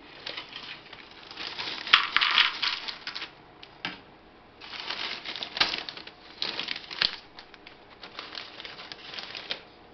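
Small hollow Pom-Bär potato snacks poured from a crinkling plastic snack bag into a plastic bowl, in a few bursts of rustling and rattling.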